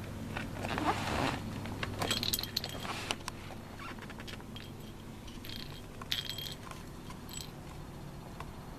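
A small clear plastic cat toy rattling, clicking and jingling as a kitten bats it across concrete, in two bursts of light metallic-sounding jingle a few seconds apart.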